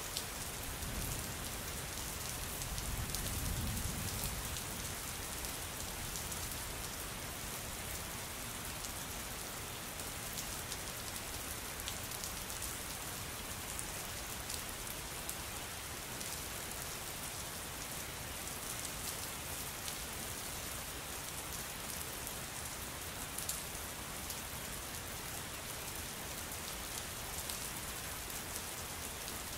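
Steady rain-like hiss with faint scattered ticks, and a low rumble swelling about two to four seconds in.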